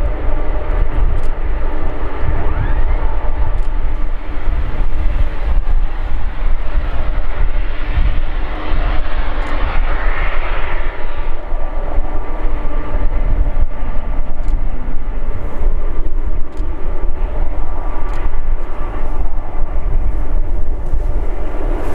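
Boeing 747-400 jet engines running loud and steady: a whine of several held tones over a heavy low rumble, swelling and brightening around the middle.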